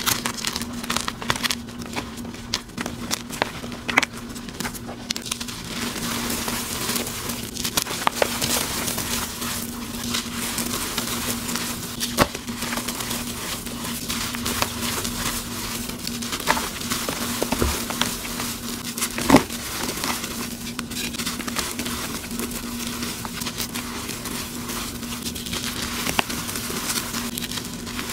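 Blocks of gym chalk crunching and crumbling as they are squeezed and broken apart in the hands, a dense crackle with a few sharper cracks. A steady low hum runs underneath.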